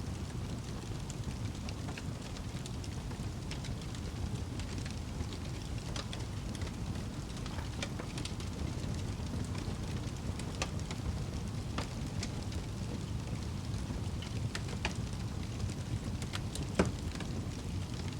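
Fireplace fire crackling: a steady low rumble with scattered small pops and snaps, and one louder pop near the end.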